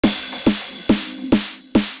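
Electronic background music with a steady, heavy beat, just over two beats a second, each beat a low drum that drops in pitch under a hissy top.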